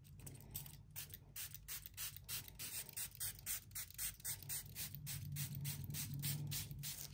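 A fast, even series of short sharp clicking strokes, about four a second, over a low hum that swells near the end.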